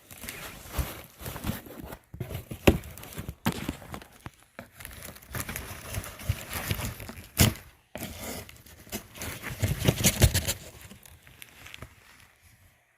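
Packaging being unwrapped by hand: steady crinkling and tearing, with scattered sharp clicks and knocks, busiest about ten seconds in and dying down near the end.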